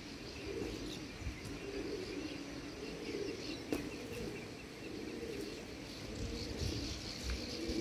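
A large flock of streak-throated swallows twittering high and faintly, over a steady, wavering low cooing of pigeons.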